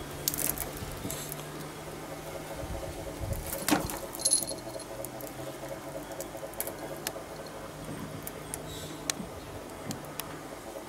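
Scattered light clicks and rattles, with one sharper knock about four seconds in, over a steady low hum.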